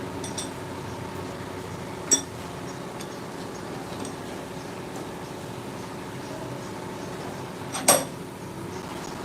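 Milling machinery running with a steady hum, with two sharp metallic clinks, one about two seconds in and a louder one near the end.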